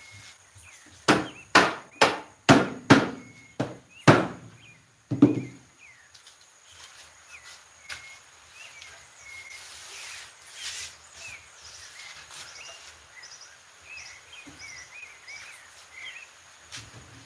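About eight hammer blows on wood in quick succession, knocking the parts of a door together during a dry-fit assembly, then they stop. Afterwards only faint chirping and a few soft knocks.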